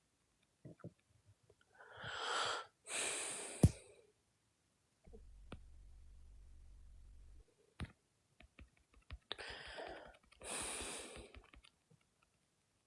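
A man breathing in and out twice, close to the microphone, each breath a short rush of air. Small clicks are scattered through it, with one sharp tap about three and a half seconds in and a low hum for a couple of seconds midway.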